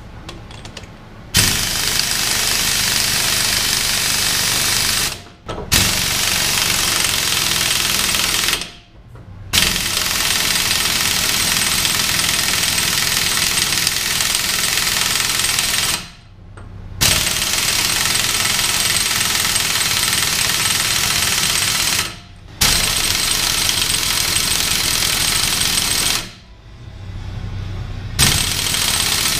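Impact wrench hammering in about six long bursts of several seconds each, with short pauses between them, running down the pinion nut on a GM 8.6-inch rear end. It is crushing the pinion crush sleeve and pressing the front pinion bearing on to set bearing preload, and the nut is slow to tighten.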